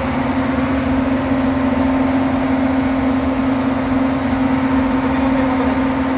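Standby generator set engine running steadily with a constant hum, still carrying the load while the transfer switch counts down its one-minute delay before returning to utility power.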